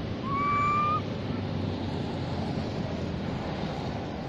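Baby long-tailed macaque giving a single clear coo call that rises slightly in pitch and lasts under a second, a contact call to its group. Steady wind noise on the microphone runs underneath.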